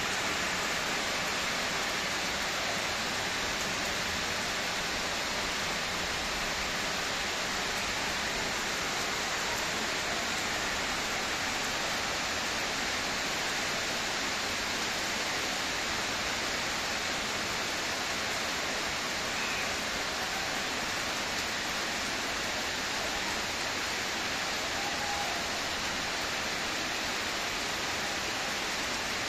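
Steady rain falling, an unbroken even hiss.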